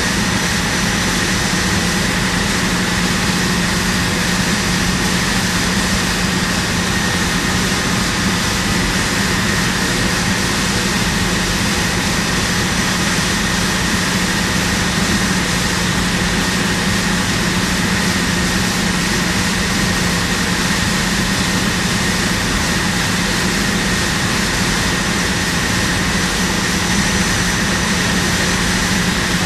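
Steady, loud mechanical drone of running industrial equipment, a constant rushing noise with a low hum and a faint high whine throughout.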